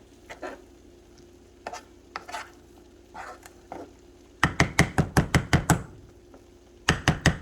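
Knife chopping fast on a cutting board, about six even strokes a second, in two runs: one just past the middle and another starting near the end. Before them, a few scattered light clicks and knocks of kitchen utensils.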